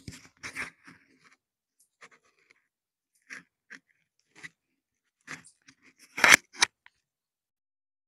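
Scratchy crackling and rubbing of a clip-on microphone's foam windscreen being handled by fingers: scattered short crackles with gaps between them, the loudest cluster about six seconds in.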